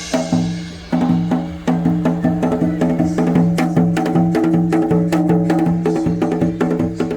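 Janggu, the Korean hourglass drum, played in a quick trot rhythm: dense, sharp stick strokes over sustained low pitched tones.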